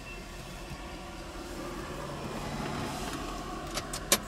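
Low vehicle rumble that grows slightly louder through the middle, with a few sharp clicks near the end.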